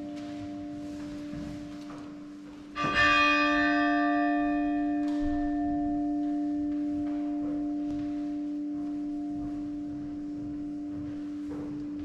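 A bell struck once about three seconds in, with a shimmer of high overtones that fade within a few seconds while its deeper tone rings on over a steady low hum.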